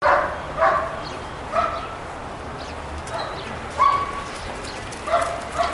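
A police service dog barking: about six short barks at uneven intervals.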